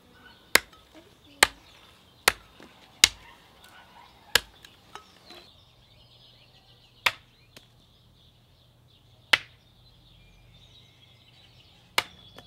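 Small hatchet chopping a thin branch against a wooden stump: about nine sharp chops, close to one a second at first, then a few seconds apart.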